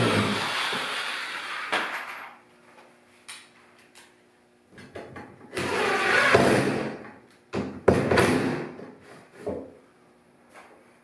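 Wood rubbing and scraping in three bursts of a second or two, with a few sharp knocks between them, as a clamped wooden rail is pressed and handled.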